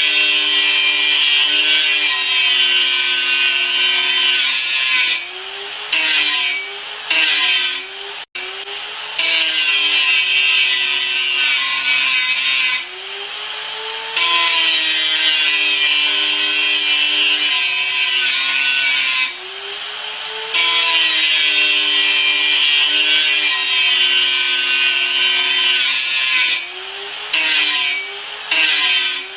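Electric grinder running and grinding in long passes, a steady motor whine under a harsh hiss of abrasion. The grinding drops away briefly several times, about every four to six seconds, as the tool comes off the work, and the motor pitch shifts.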